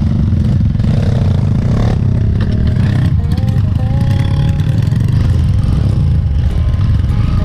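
Trail motorcycle engine running loud and steady under throttle.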